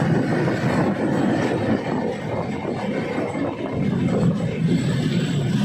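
Passenger train in motion: a steady, continuous rumble of the running train.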